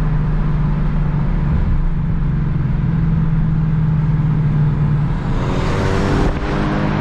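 Ford Mustang engine and exhaust running with a steady low rumble, then revving up hard with a rising pitch about five seconds in. The rise breaks off briefly just past six seconds and climbs again near the end.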